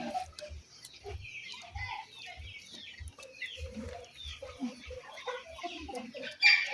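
A flock of chickens clucking, with many short overlapping calls and one louder call near the end.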